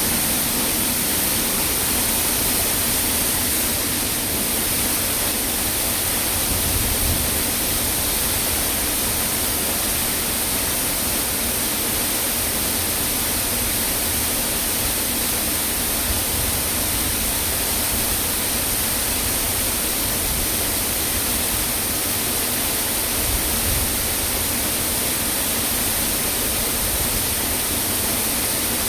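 Waterfall: falling water rushing steadily and evenly throughout.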